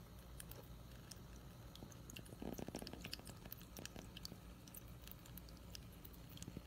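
HoMedics three-tier tabletop fountain: water trickling and dripping from tier to tier, heard faintly as scattered small drips and splashes over a low steady hum. A brief burst of rapid clicks comes about two and a half seconds in.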